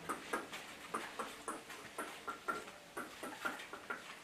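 Light, irregular clicking and tapping, several taps a second, of a puppy's claws scrabbling on a tiled floor as it chases a dragged feather boa.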